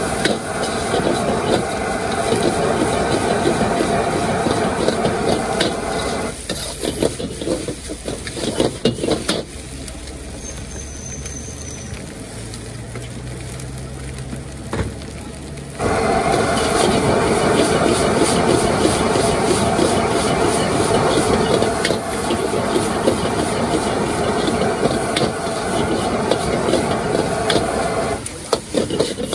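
Stir-frying in a street-food wok: food sizzling, with the metal spatula scraping and clattering against the wok. It eases off for several seconds in the middle, then comes back as loud as before.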